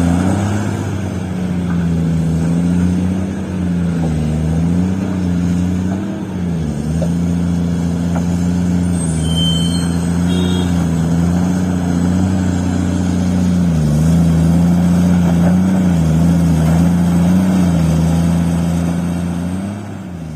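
Heavy diesel engine of mining machinery running steadily, its pitch dipping briefly every few seconds as load comes on and off. A short high squeal sounds about halfway through.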